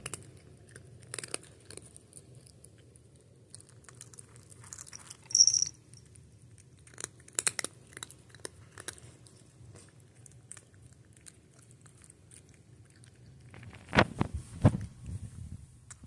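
A cat crunching and chewing dry kibble close to the microphone, in irregular bursts of crunches with quiet gaps between, the loudest run of crunches near the end.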